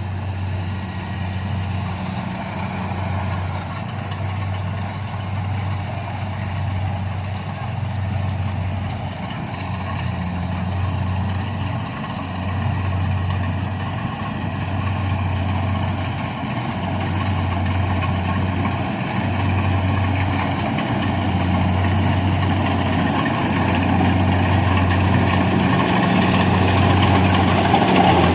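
Rice combine harvester's engine running steadily with a low, even hum, growing louder near the end.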